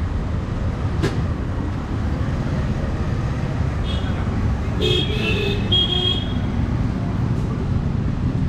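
Steady street traffic rumble, with a vehicle horn giving a few short beeps around the middle and a single click about a second in.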